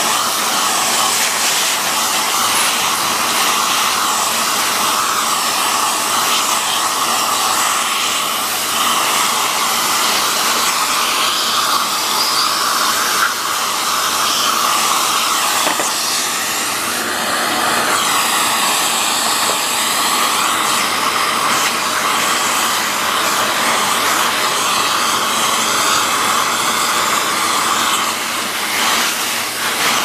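Vacuum cleaner running steadily with a dusting-brush nozzle sucking dust and hair off the parts of a vacuum motor's fan assembly. The rushing airflow shifts in tone now and then as the nozzle moves over the parts.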